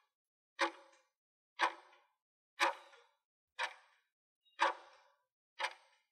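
Countdown timer sound effect: a sharp tick once a second, each with a short fading tail.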